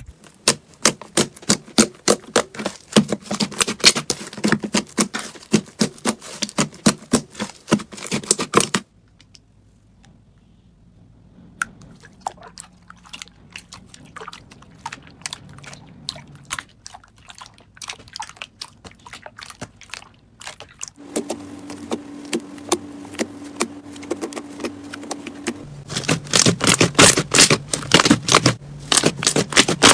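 Hands pressing, kneading and squeezing slime, giving rapid crackling clicks and pops of trapped air bubbles. The clicking is dense at first, goes quieter and sparser for several seconds in the middle under a steady low hum, and turns loud and dense again near the end.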